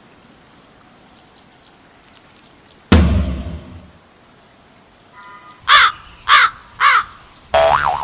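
Crow cawing three times in quick, even succession, about 0.6 s apart, with the three calls alike in shape. Before it, about three seconds in, comes one sudden thump whose low rumble dies away over about a second.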